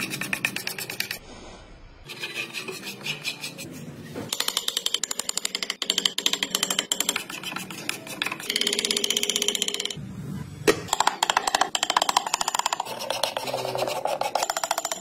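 Hand chisel paring and scraping hardwood, a fast run of short scraping strokes cutting shavings, in several short stretches that change abruptly.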